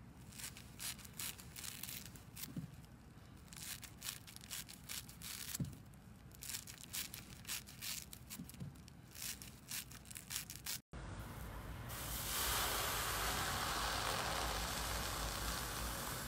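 Scissors snipping through a yellow foam sponge, a quick run of short crisp cuts. About eleven seconds in this gives way to a steady fizzing crackle as a thick blue foamy slime is pulled apart in a tub.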